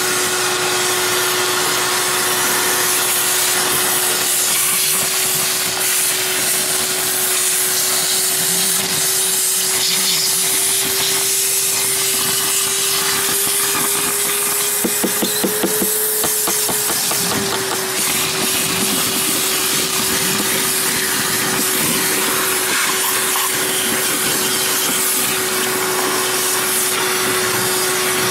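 An electric motor runs steadily with a loud hiss of rushing air and a steady hum. About halfway through, its pitch rises a little for a few seconds with a brief rattle, then settles back.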